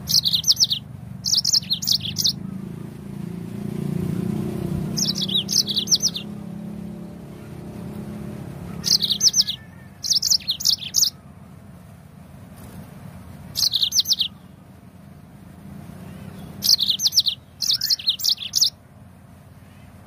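Yellow-fronted canary (Mozambique canary) singing in short phrases of quick high notes, about eight phrases spaced one to a few seconds apart.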